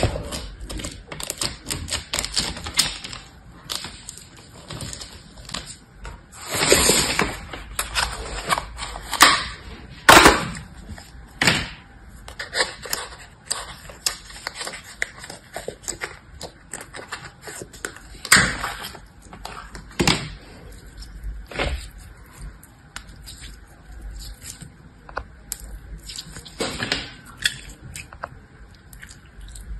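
Fingers pressing crunchy foam-bead slime, giving irregular crackling and clicking. Then a plastic tub is handled and clear jelly slime is squeezed by hand, with louder squishing noises now and then.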